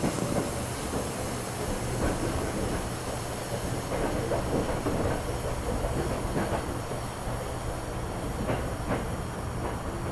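Tokyo Metro Chiyoda Line subway train running, heard from inside the car: a steady rumble of wheels on rail with a low steady hum, and a few short clicks in the second half.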